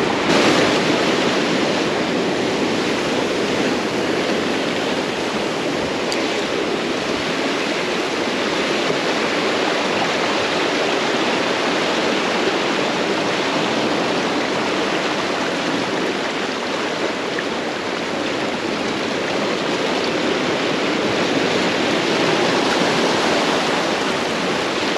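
Ocean surf washing steadily against a rocky shoreline: a continuous, even rush of water.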